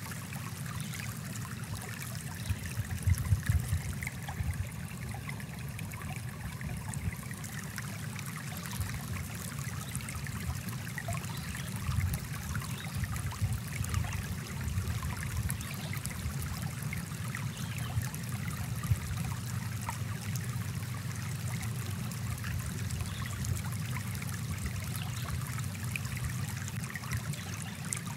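A small brook flowing steadily over rocks, with a few brief louder splashes about three seconds in and near twelve seconds.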